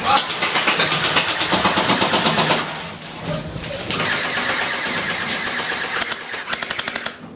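Airsoft guns firing on full auto in two long bursts of rapid clicks, with a short break between them about two and a half seconds in.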